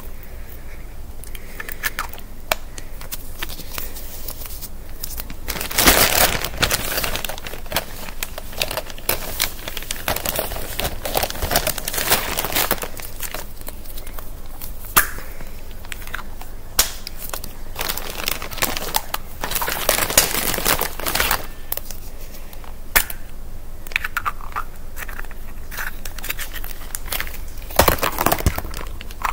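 Plastic Easter egg halves being handled and pressed together, with irregular clicks and snaps, and the crinkling of a plastic bag in short bursts at intervals.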